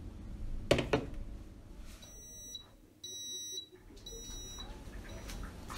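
Beaba Babycook steamer's electronic signal beeping three times, each beep about half a second long and about a second apart, high-pitched: the sign that the steaming cycle has finished. A knock comes just before the beeps, about a second in.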